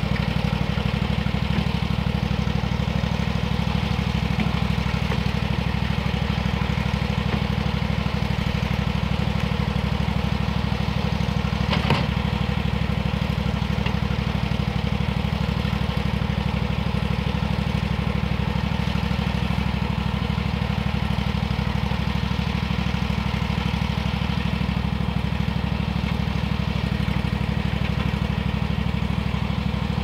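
An engine running steadily at one constant speed, with a single sharp knock about twelve seconds in.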